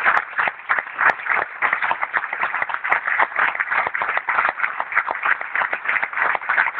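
Theatre audience applauding: many people clapping densely and continuously.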